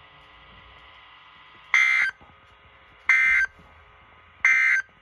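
Emergency Alert System end-of-message signal: three short bursts of digital SAME data tones, each about a third of a second long and a little over a second apart, heard over a radio broadcast, marking the end of the alert test.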